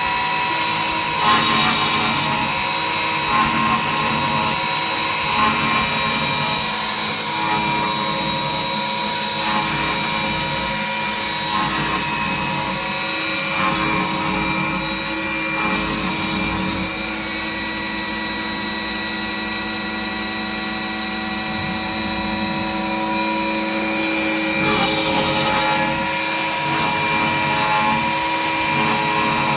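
Home-built belt-driven CNC machine running, a steady high motor whine with several fixed tones. It swells briefly a few times.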